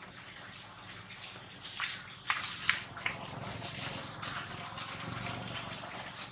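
Irregular rustling and crackling of dry leaf litter as macaques shift and handle one another, with a few sharper crackles about two to three seconds in.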